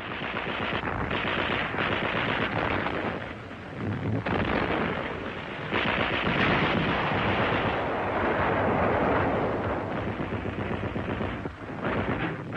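Battle sounds of dense gunfire and explosions, swelling and easing in waves with a few brief lulls.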